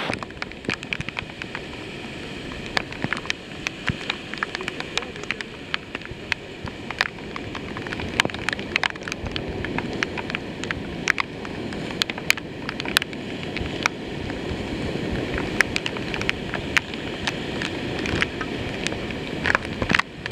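Brown floodwater of the Loup river in spate rushing steadily, with rain falling in irregular sharp ticks close by.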